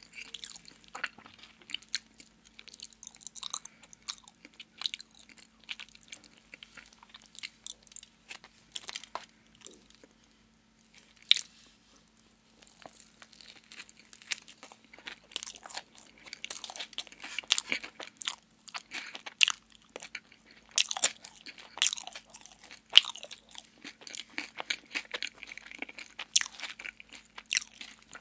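Close-miked biting and chewing of a chocolate-glazed donut with a crunchy topping: sharp crunches and mouth clicks that thin out briefly about ten seconds in and come thick again from about sixteen seconds. A faint steady low hum lies underneath.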